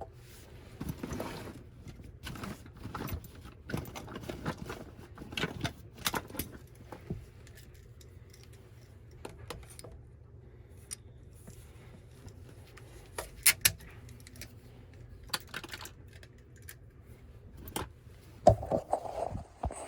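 Irregular clicks, taps and clatter of hand tools and plastic drain pipe being handled, over a steady low hum.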